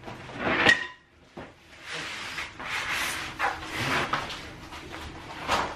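IKEA Tärendö flat-pack table top and its cardboard packing being lifted and shifted on the floor: cardboard scraping and rustling, with a sharp knock just under a second in.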